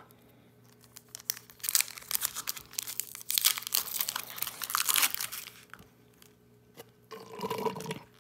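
Foil Pokémon card booster pack being torn open by hand: dense crackling and crinkling of the foil wrapper for about four seconds.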